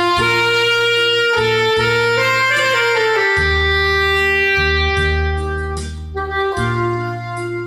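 Instrumental music: a reed woodwind plays a slow melody with sliding notes over a backing track with a steady, pulsing bass.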